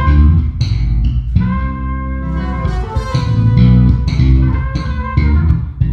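A small live band playing, with an electric bass guitar prominent in deep sustained notes over keyboard and a drum kit with occasional sharp hits.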